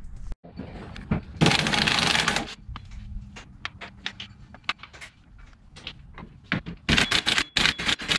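Cordless impact wrench hammering on the nuts of a front steering knuckle to loosen them. There is a loud burst of about a second early on, small clicks and tool handling after it, then another run of hammering strokes near the end.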